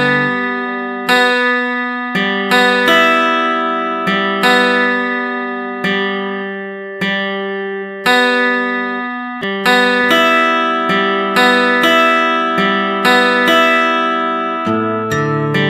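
Background music: acoustic guitar chords struck and left to ring, a new chord about every second.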